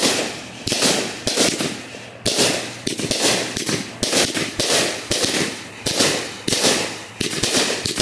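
Consumer firework cake (Guerrilla Warfare) firing shot after shot, about one every three-quarters of a second. Each shot is a sharp bang followed by a crackling tail.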